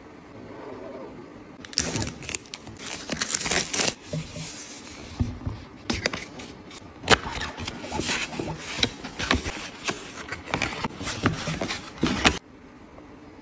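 Hands handling a white cardboard phone box, with a run of sharp clicks, taps and scraping rustles as the sleeve and flaps are worked open. The sounds start about two seconds in and stop suddenly near the end.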